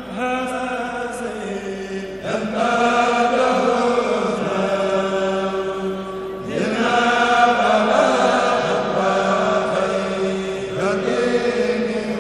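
A kourel of male chanters singing a Murid khassida together without instruments, in long held notes over a steady low tone. A new phrase begins about two seconds in, again past the middle, and near the end.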